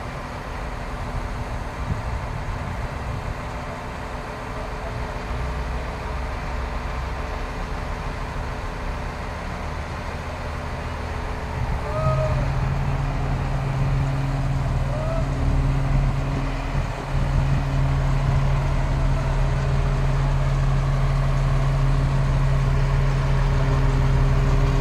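Heavy diesel engine of a mobile crane running steadily. About twelve seconds in, its hum steps up and gets louder as the revs rise.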